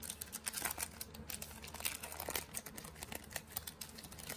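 Trading cards being handled and slid past one another in the hands: a steady run of light clicks and rustles.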